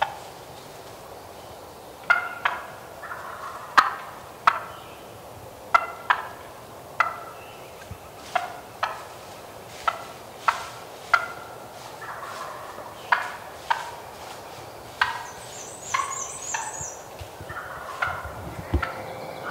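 Wild turkeys gobbling over and over in hardwood timber. A run of sharp calls starts about two seconds in and comes roughly once a second, with irregular gaps.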